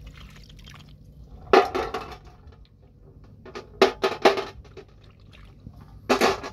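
Hands working in wet mud and shallow water, squelching and splashing, with sharp clinks and wet plops as the catch is dropped into a metal bowl: one about a second and a half in, a quick run of three around four seconds, and another near the end.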